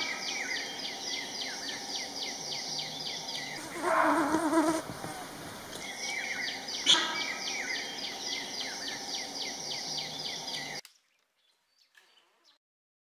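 Forest wildlife sounds: a rapid series of short falling chirps, about four a second, broken about four seconds in by a louder, lower call lasting about a second. The sound cuts off suddenly near the end.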